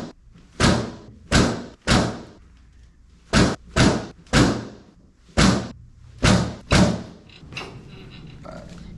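A quick series of about nine sharp, loud thuds, each ringing briefly, roughly one every half second to a second, with a few fainter knocks near the end.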